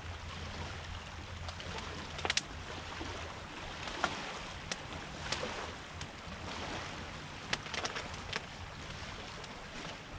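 Small wood campfire crackling, with scattered sharp pops over a steady rushing background noise.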